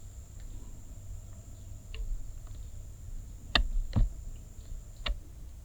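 A few short, sharp clicks over a low steady rumble, the two loudest close together about three and a half and four seconds in.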